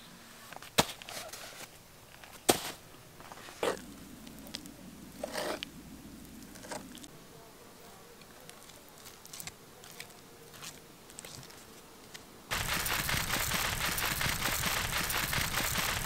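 Sharp clicks and short crinkly rustles of green corn husks being handled and pulled back from an ear of corn. About three quarters of the way through, a sudden loud, steady crackling rustle takes over.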